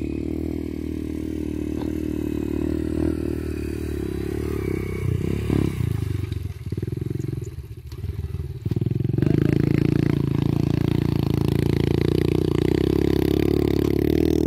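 Small motorcycle engine running under the load of a tall stack of rice-straw bales. It drops away for a few seconds around the middle, then comes back louder and runs steadily.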